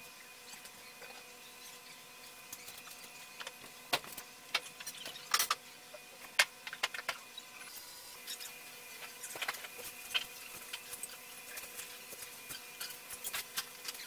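Servo and stepper motors of a small desktop robot arm and its linear rail, whining faintly with several steady tones as the arm moves. Scattered sharp clicks and taps come through, densest about four to seven seconds in and again near the end.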